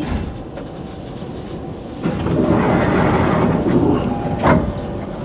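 Sotetsu 10000 series electric train heard from the cab: a rushing noise swells up about two seconds in and runs for about two seconds, and a single sharp clack comes near the end.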